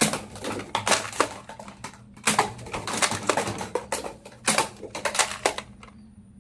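Toy guns being handled, giving a string of irregular clicks and clacks with a few louder knocks. The clicking stops about a second before the end.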